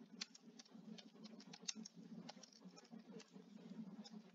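Faint typing on a computer keyboard: about a dozen irregular key clicks as a search phrase is typed.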